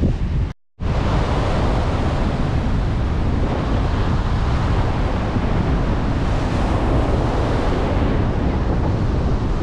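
Strong wind buffeting the microphone over the steady wash of breaking sea surf. The sound drops out briefly about half a second in.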